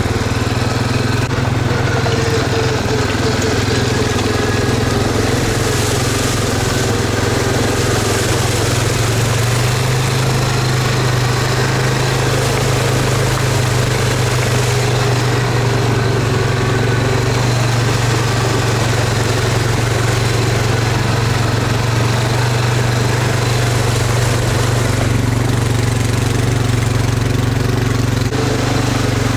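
A vehicle engine running steadily, its pitch rising a little about a third of the way in and dropping again near the end.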